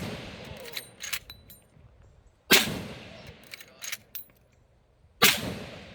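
Marlin 1895 SBL lever-action rifle in .45-70 fired twice, about two and a half seconds apart, each shot followed by a long echoing tail. Between the shots come quick metallic clacks as the lever is worked to chamber the next round.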